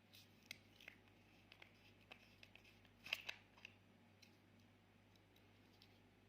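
Faint, short clicks and taps of small objects being handled, scattered over the first few seconds with the loudest cluster about three seconds in, over a low steady hum.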